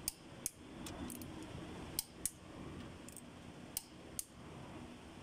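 Sharp metallic clicks from a torque wrench and socket on the connecting-rod cap bolts of a Cummins QST30 engine as they are tightened to 80 foot-pounds. There are about nine clicks, irregularly spaced.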